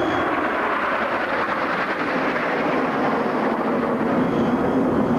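Jet noise from a nine-ship formation of Red Arrows BAe Hawk jets flying past: a steady rushing sound that drops lower in pitch as they go by.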